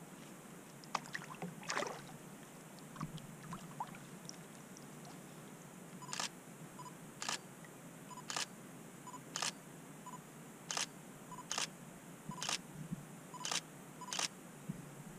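Nikon D3400 DSLR shutter firing single shots, about nine sharp clicks roughly a second apart, starting about six seconds in. Before them there are a couple of small knocks over a faint steady background.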